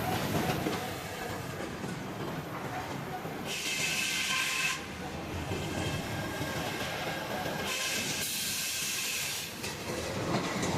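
Machinery running steadily, with two stretches of loud high hissing a second or two long, about a third of the way in and again near the end.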